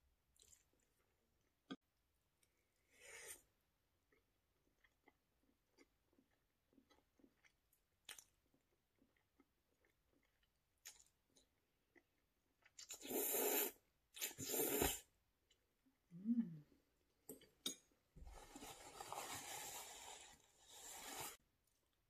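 A person eating close to the microphone: quiet chewing with small wet mouth clicks, broken twice midway by loud, short slurps and near the end by a longer slurp of about three seconds.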